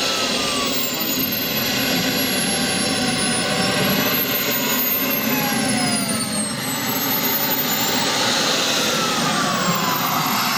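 Model jet gas turbine, a Kingtech 210, running in a 1/3.5-scale BAE Hawk: a steady rushing roar with high whining tones that slide up and down in pitch.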